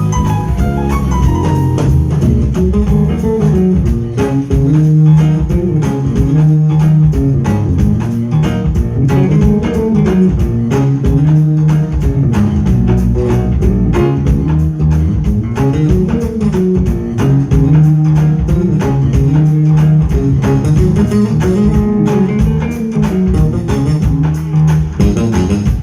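A live smooth-jazz band playing: an electric guitar carries the tune over a repeating bass guitar line and a steady drum-kit beat.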